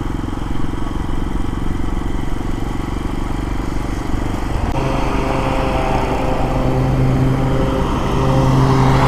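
Lifan KPX250's single-cylinder four-stroke engine running while riding along. The engine note changes about halfway through and settles into a steady hum.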